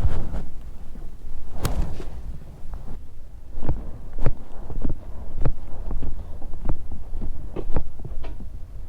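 Kawasaki Ninja 250's parallel-twin engine idling through a Yoshimura aftermarket exhaust: a steady low throbbing rumble with irregular sharp clicks or pops scattered through it.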